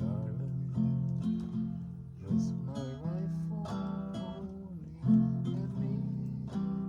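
Acoustic guitar strumming chords in an instrumental passage of a cowboy song, with a gliding melody line over the chords.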